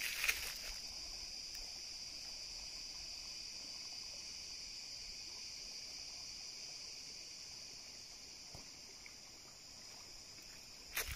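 Steady, high-pitched chorus of forest insects, holding an even drone, with a few brief rustles near the start.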